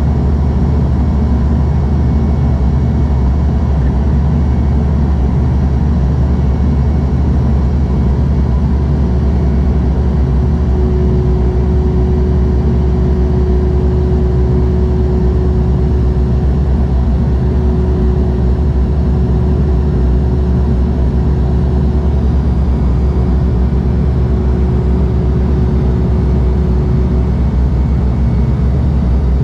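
Steady cabin drone of a Bombardier Dash 8-Q200's Pratt & Whitney Canada PW123 turboprop engines and propellers, heard from inside the cabin beside the propeller. It is a loud, even low hum. A faint, steady higher tone comes in about nine seconds in and drops out near the end.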